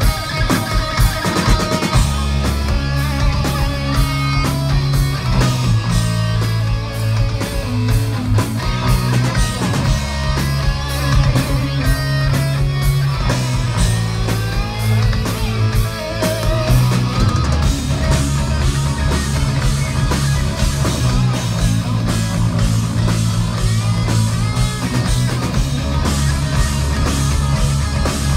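Heavy metal band playing live: distorted electric guitars, bass guitar and a drum kit with fast, even drum strokes. The heavy low end of guitars and bass comes in about two seconds in.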